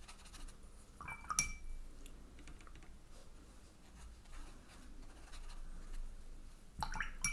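Watercolour brush stroking wet paint onto cold-pressed cotton watercolour paper: faint, soft scratching. There are two sharper clicks, about a second in and near the end.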